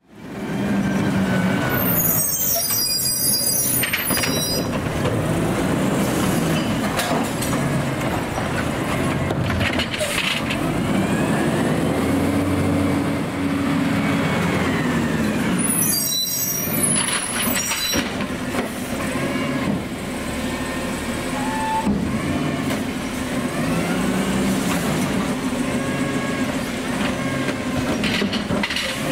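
Automated side-loader garbage truck's diesel engine running, its pitch rising and falling several times as it revs up and settles. Sharp air-brake hisses sound about two seconds in and again about sixteen seconds in.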